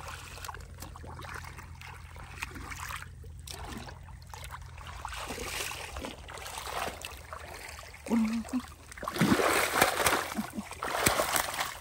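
Splashing and sloshing in shallow muddy water, getting much louder over the last few seconds.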